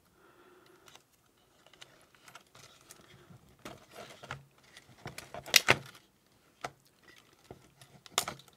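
White plastic multi-pin wire connectors being pulled off a circuit board: wires rustle, with a few sharp plastic clicks, the loudest about halfway through and another near the end.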